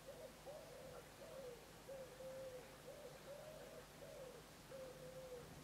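A pigeon cooing faintly: soft repeated phrases of coos, with one note in each phrase drawn out longer and flat.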